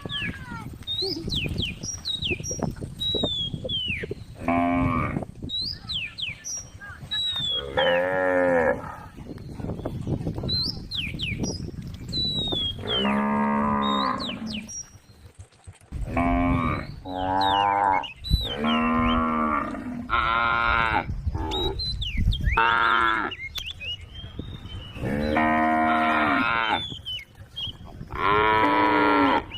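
Cows mooing again and again: about ten drawn-out calls of a second or so each, some following close on one another, with short high chirps in the gaps.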